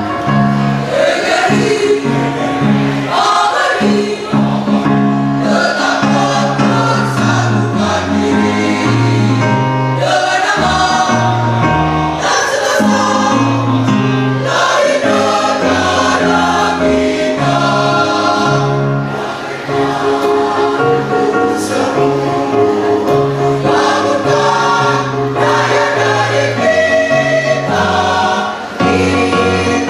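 Mixed choir of women and men singing in parts under a conductor.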